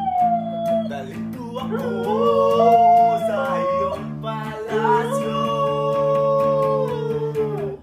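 A dog howls along to an electric guitar playing sustained chords. The howls waver and glide in pitch, and a long held howl begins about five seconds in and slides down near the end.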